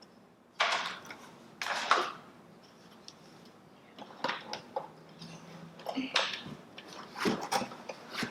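Packaging and accessories handled: short rustles and light knocks in several separate bursts.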